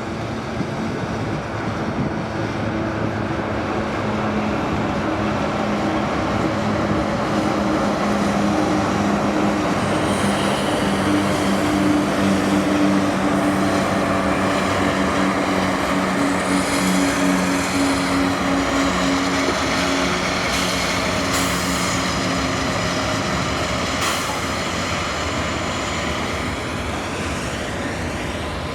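Diesel-hauled freight train passing close by: the locomotive engines' steady hum over the running noise of wheels on rail, growing louder to a peak about twelve seconds in and then slowly fading.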